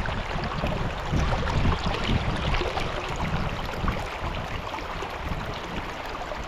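River water rushing and splashing steadily, with gusts of wind buffeting the microphone.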